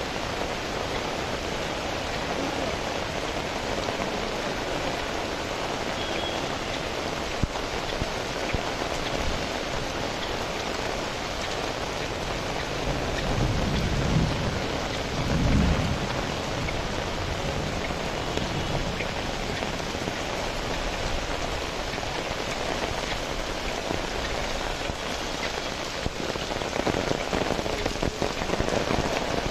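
Steady rain falling on a wet street. About halfway through, a low rumble of thunder rises and fades.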